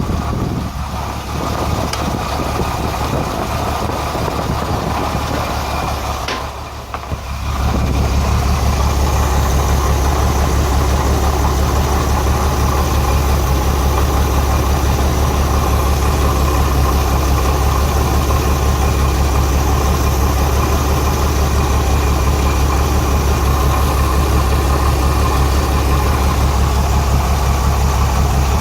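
Renix Jeep Cherokee inline-six idling roughly with a misfire on cylinder 6. The misfire is traced to cylinder 6's exhaust valve rocker, which moves less than the others. The sound dips briefly about six to seven seconds in, then runs steadily and slightly louder.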